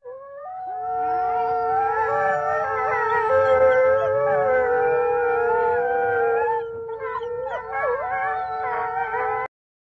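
A pack of wolves howling together, several voices overlapping at different pitches: one long, steady low howl under higher, wavering ones. It cuts off suddenly near the end.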